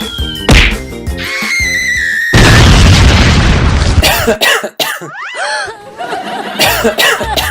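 Comedy sound effects over background music: a sharp hit, a falling whistle, then a loud boom lasting over a second, followed by short, bending cartoonish vocal sounds.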